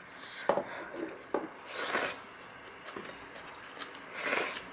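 Eating ramen: three short slurps of noodles and broth, with two light clicks of utensils against the bowl about half a second and a second and a half in.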